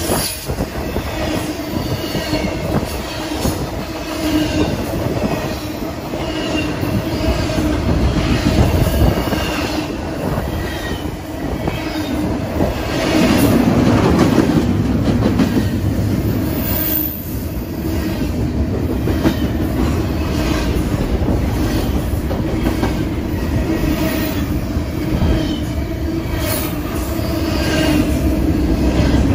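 BNSF double-stack intermodal freight train rolling past at speed, close by: a loud, steady rumble of steel wheels on rail with repeated clicking over the rail joints and short, high wheel squeals coming again and again. It grows louder about halfway through and again near the end.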